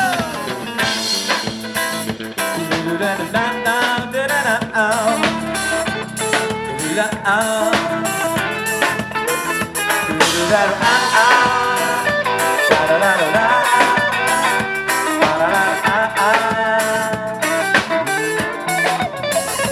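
Instrumental break of a pop song: a melodic lead line over guitar and drums with a steady beat.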